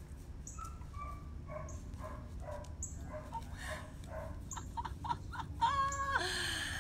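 A puppy whining and yipping: a string of short, high squeaks, then a longer, louder whine near the end.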